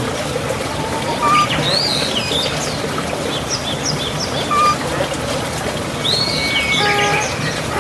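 Songbirds chirping and singing in short sweeping calls and quick repeated notes, over a steady trickle of running water.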